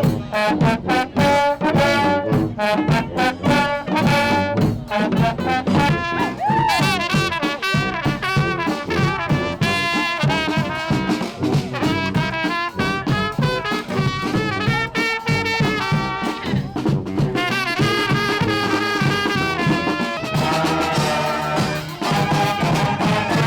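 Live honk band (street brass band) playing: trumpets and trombones over percussion keeping a steady beat.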